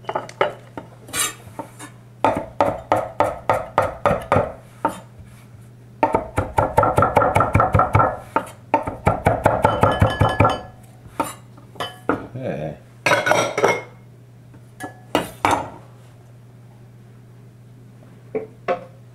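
Chef's knife chopping fresh cilantro on a cutting board: runs of quick, regular strokes, densest in the middle, then a few scattered knocks. A steady low hum runs underneath.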